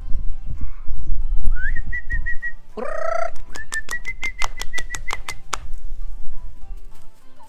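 A chicken being grabbed and picked up: one loud squawk about three seconds in, framed by high whistle-like chirps, the later ones in a quick run of about five a second. Background music with low, irregular thumps runs underneath.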